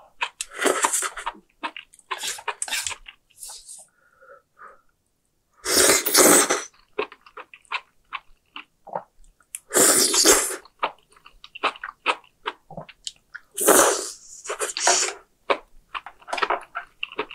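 Close-miked eating of spicy hot pot: several loud, breathy slurps of broth and noodles, each about half a second long, with soft wet chewing clicks between them.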